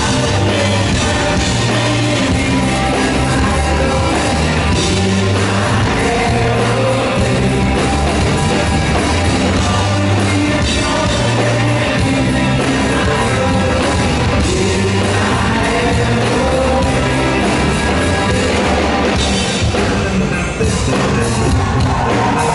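Live funk-rock band playing loud through an arena sound system, with a prominent bass line and a singing voice over the full band.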